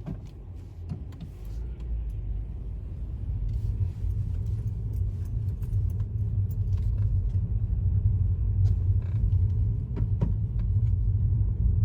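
Car driving, heard from inside the cabin: a steady low rumble of engine and road noise that builds over the first few seconds as the car picks up speed, with a few light rattles and ticks.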